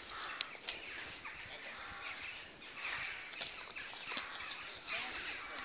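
Woodland background of birds calling, with scattered footsteps and handling clicks on a dirt path.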